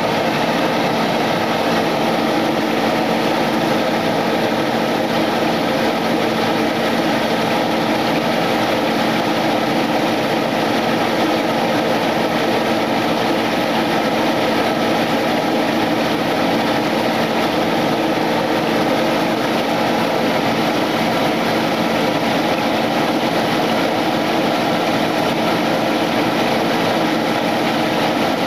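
Chicken breasts frying in oil in a frying pan, a steady, even sizzle with a constant hum underneath.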